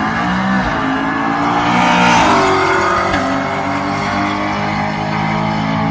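Two drag-racing cars, a naturally aspirated Chevrolet Camaro SS V8 and an Acura NSX, accelerating hard down the strip side by side. Their engine notes climb and drop back in steps as they shift up through the gears, loudest about two seconds in.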